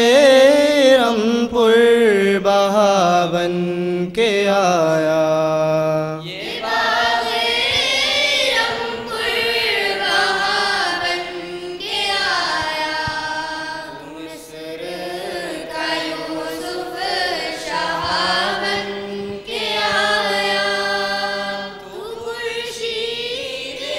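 A group of students singing an Urdu madeh, a devotional praise song, together in unison without instruments, drawing out long, wavering held notes with short breaths between phrases.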